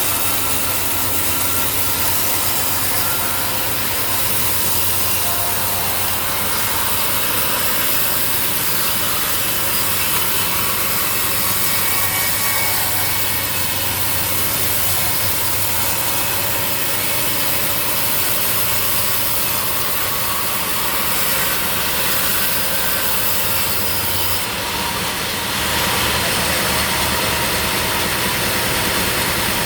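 Sawmill saw cutting through a log with its engine running steadily under load; near the end the sound shifts, as if the cut eases and the engine runs on.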